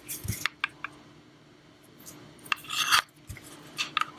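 Handling noise of a small box mod being moved on a surface: scattered light clicks and rubbing, with a louder scrape about three seconds in and a few more clicks near the end.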